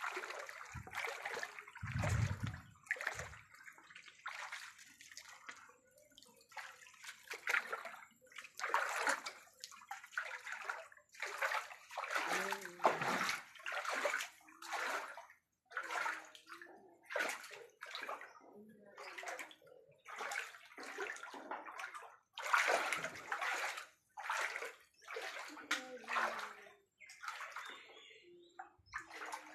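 Floodwater sloshing and splashing in a run of irregular surges, about one or two a second.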